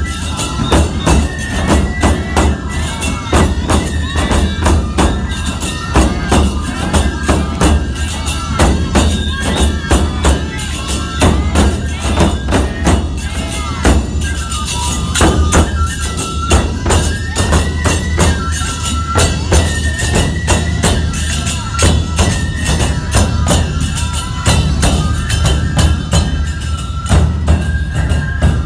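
Live nebuta bayashi festival music: big taiko drums beating, bamboo flutes playing a repeating melody, and hand cymbals (tebiragane) clashing in a fast, steady rhythm.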